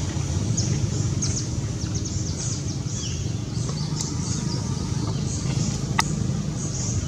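Outdoor background sound: a steady low rumble with many short, high chirps scattered through it, and one sharp click about six seconds in.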